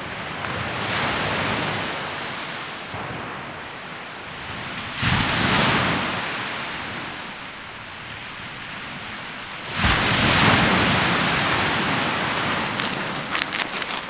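Sea waves breaking and washing up a shore over a steady hiss of surf, with two larger surges that start suddenly about five seconds apart and die away slowly.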